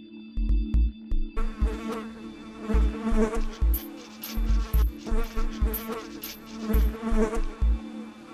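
A fly buzzing, starting about a second and a half in and swelling and fading in waves, with a short break midway. Under it runs electronic music with a held low drone and a pulsing low beat.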